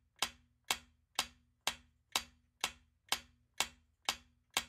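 Countdown timer's ticking sound effect: crisp, even clock-like ticks, about two a second.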